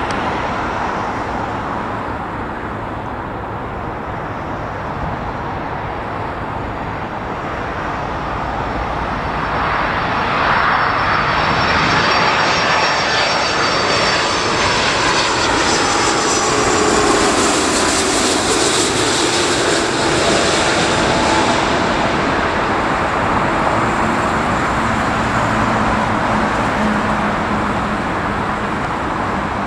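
Airbus A330-300 with Rolls-Royce Trent 700 turbofan engines on final approach, its engine noise building as it nears and loudest as it passes close, about halfway through, with a high whine that falls in pitch as it goes by; a steady engine noise carries on after it passes.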